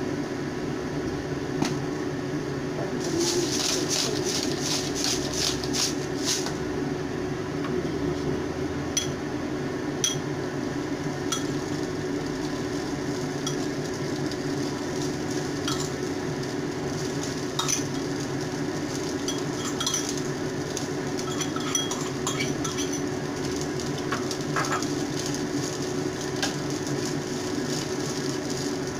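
A metal spoon scrapes and clinks against a bowl and a small frying pan as food is stirred over a gas burner. The scraping is dense about three to six seconds in, followed by scattered single clinks. Underneath runs a steady frying sizzle and a low hum.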